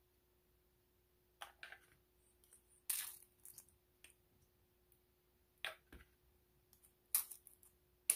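Quail eggs being cracked open by hand into a stainless steel bowl: the thin shells crackle and crunch in four or five short bursts, about one every one and a half to two seconds.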